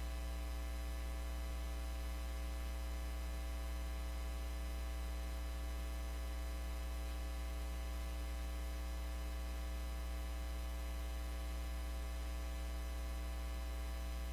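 Steady electrical mains hum with a buzz of many fixed tones above it, unchanging throughout. No speech is heard.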